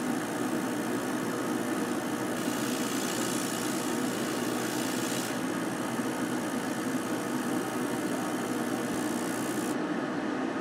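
Genmitsu LC-50+ laser cutter running as it cuts 3 mm plywood: a steady mechanical hum, with a brighter hiss for about three seconds starting two seconds in.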